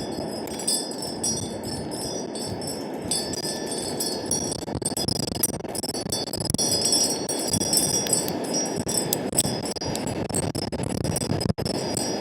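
Chimes tinkling continually in gusty wind, over a steady rush of wind on the microphone.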